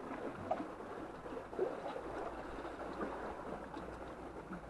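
Small sea waves washing and lapping, a steady watery wash with a few slightly louder moments.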